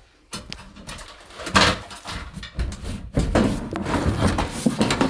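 A large black plastic cold-water storage cistern is worked up through a loft hatch. It scrapes and knocks in an irregular run of rubs and bumps that starts about a third of a second in and is loudest in the second half.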